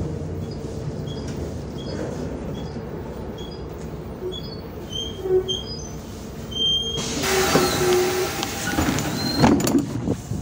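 Interior of a MAZ 105.465 articulated city bus: a steady low engine drone, then a series of short high beeps about four and a half seconds in. About seven seconds in comes a loud hiss of released compressed air from the bus's pneumatic system, lasting a couple of seconds, followed by a few knocks.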